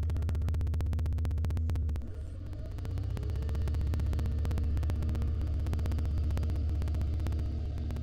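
Steady low electrical hum with a fast buzz running through it, dipping briefly about two seconds in.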